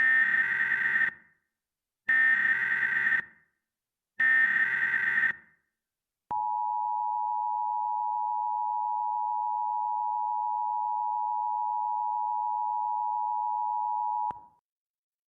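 Emergency Alert System tones: three bursts of SAME header data, each about a second long and two seconds apart, then the steady two-tone EAS attention signal for about eight seconds, which cuts off suddenly.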